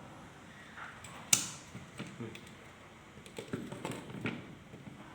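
Clicks and light knocks of car window regulator parts being handled and fitted by hand, with one sharp click about a second and a half in and smaller ticks after it.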